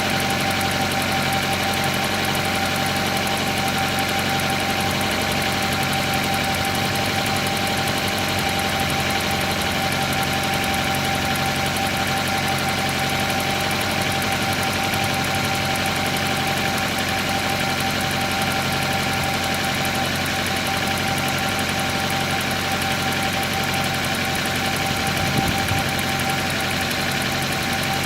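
Car engine idling cold on petrol, running steadily with a constant high whine, and a single brief knock near the end.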